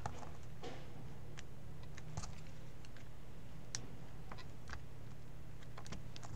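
Scattered light clicks and taps, coming at irregular intervals, from small parts and tools being handled during a cable repair, over a steady low electrical hum.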